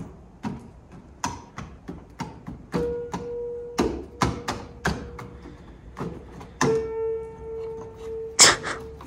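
Keys of a derelict, gutted upright piano being pressed one after another. Most give only short wooden thunks from the action. A note rings out for a couple of seconds about three seconds in, and another from near seven seconds on.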